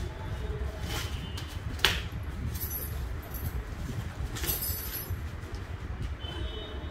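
Handling noise from a punching bag being unwrapped and tipped over: cardboard and plastic packaging rustling, a sharp knock about two seconds in, and light metallic clinking from the bag's hanging chains.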